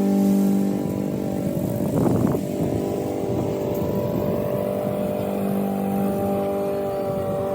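Honda-powered Toro Recycler walk-behind lawn mower running steadily while mowing, its engine note turning rougher for a moment about two seconds in.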